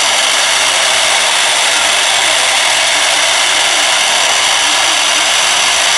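Rotary CNC router's high-speed spindle running with its end mill cutting into a wooden baluster, carving a spiral-twist pattern: a loud, steady high whine mixed with the hiss of the cut.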